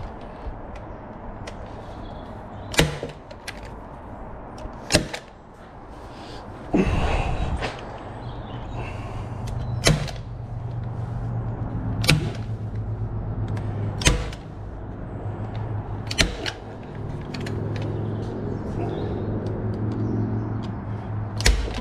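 A hand staple gun fired seven times into a timber beam, each shot a sharp snap a few seconds apart, as cable is stapled along the beam. A steady low hum runs underneath from about a third of the way in.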